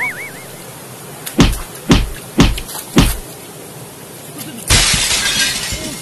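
Edited-in comedy sound effects: four sharp thuds about half a second apart, then a loud crash like shattering glass lasting about a second.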